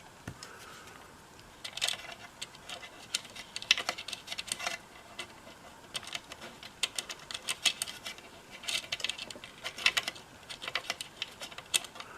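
Small metal hardware clicking and tapping: hex nuts being put on by hand over the threaded bushings of two potentiometers on a radio chassis. The quick, irregular clicks start about two seconds in.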